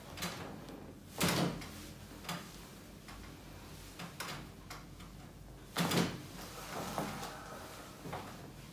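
A few scattered sharp knocks and thuds over a low background. The strongest come about a second in and just before six seconds in.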